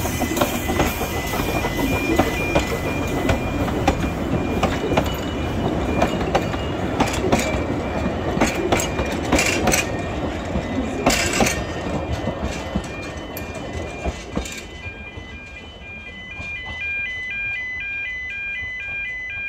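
Narrow-gauge train of steam locomotive No. 7 "Tom Rolt" and its carriages rolling past over a level crossing, with wheels clicking over the rail joints. The sound dies away about fifteen seconds in, and a few seconds later a repeating pattern of electronic beeping tones begins.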